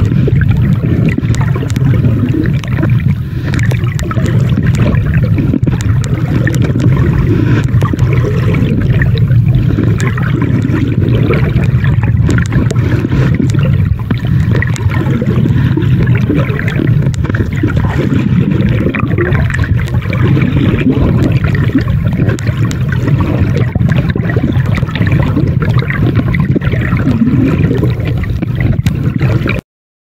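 Underwater ambience picked up by a camera on a coral reef: a steady low rush of water with gurgling and many scattered small clicks, cutting off suddenly near the end.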